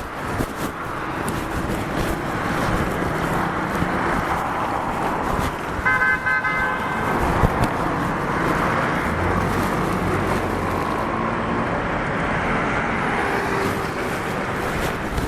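City street traffic running steadily, with a car horn honking briefly about six seconds in.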